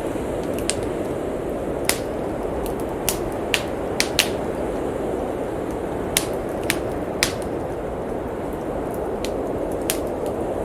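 Wood fire crackling in a fireplace, with about ten sharp, irregular pops, over a steady rush of snowstorm wind.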